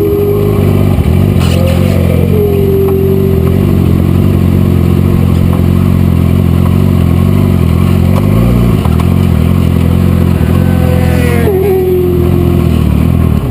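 Sport motorcycle engine running at a steady moderate speed, heard from a camera mounted on the bike, with a whistling tone over it and a brief change in engine pitch about eight and a half seconds in.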